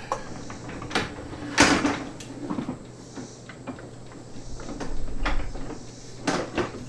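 A solar panel and its mounting brackets knocking and scraping against a car's roof rails as it is set in place for a test fit. The knocks are irregular, with the loudest about one and a half seconds in and more clatter near the end.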